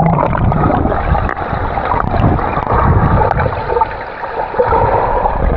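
Pool water sloshing and gurgling close to the microphone: a continuous, uneven churning with low rumbles and no clear single splashes.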